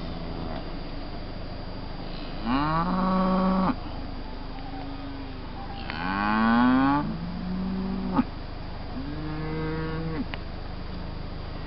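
Cattle mooing: about four long, low calls, the loudest about six seconds in. There is a sharp click just after eight seconds.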